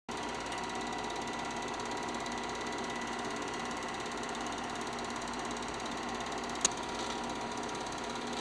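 Film projector running, a steady mechanical whir with a constant hum. One sharp click comes late on.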